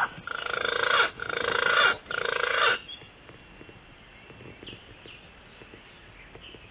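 Three loud, rough animal calls in quick succession, each just under a second long.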